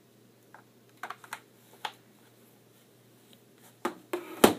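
Light plastic clicks and taps as a power cord's plug is worked into the AC socket on the back of a soundbar, then a cluster of louder knocks near the end as the soundbar is moved on the table.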